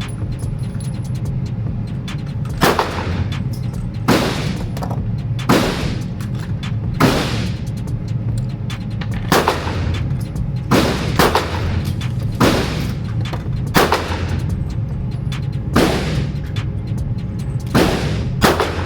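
Pistol shots at an indoor range: about a dozen single shots fired at an unhurried, uneven pace, roughly one to one and a half seconds apart, each ringing off the walls. A steady low rumble runs underneath.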